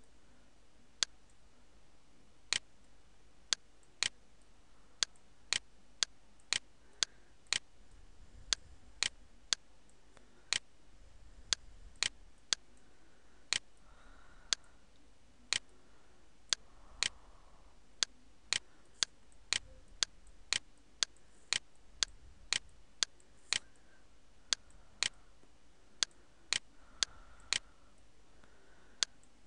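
Computer mouse clicking: single sharp clicks at irregular intervals, roughly one or two a second, sometimes two in quick succession.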